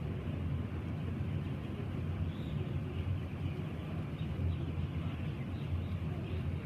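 Steady low mechanical rumble of ventilation fans running.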